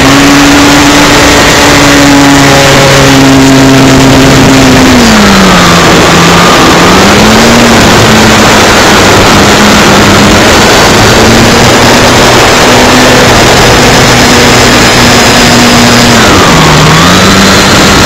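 Scratch-built RC Cessna model's motor and propeller heard from the plane's own onboard camera, very loud and overloaded over a heavy hiss of wind rush. The motor note holds high for the first few seconds, drops about five seconds in and runs steadier and lower, then dips briefly near the end.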